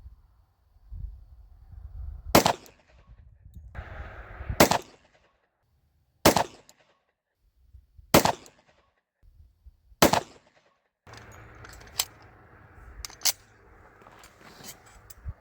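Five shots from a Glock G29 Gen 5 10mm pistol fitted with a KKM Precision barrel, fired at an even pace about two seconds apart. Fainter clicks and knocks follow the last shot.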